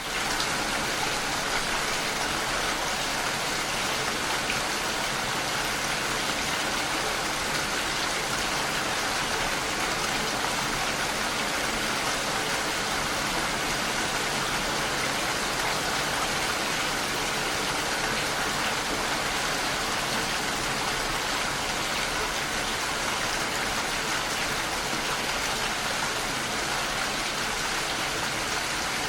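Steady rain falling, an even, constant hiss of water, which fades in quickly from silence at the very start.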